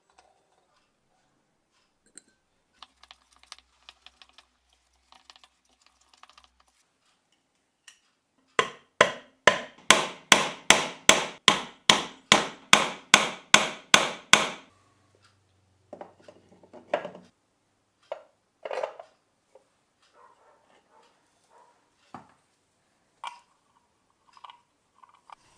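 Hammer tapping, about eighteen evenly spaced strikes at roughly three a second for some six seconds in the middle, each ringing briefly; before and after, scattered small clicks and a few separate knocks of parts being handled.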